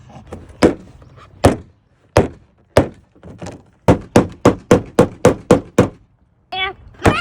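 Hammer knocking on a roof being repaired: four spaced blows, then a quick run of about eight at roughly four a second.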